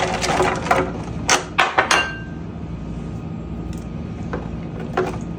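Cooked ground meat sliding out of a glass bowl into a disposable aluminium foil pan, with several sharp clinks and knocks of the glass and crinkly foil in the first two seconds. Then a quieter stretch with a couple of light taps as canned corn is tipped in.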